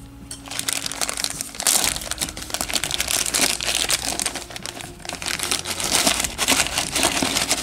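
A clear plastic zip bag of miniature figures crinkling and crackling as it is handled and turned over in the hands, starting about half a second in.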